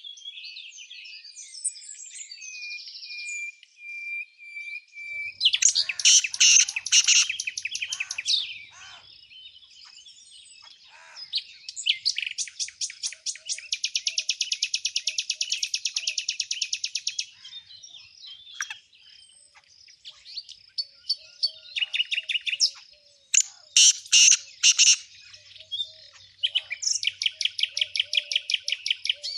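Small songbirds singing: several bursts of fast, rapidly repeated trilling notes, each lasting a few seconds, with softer chirps in between.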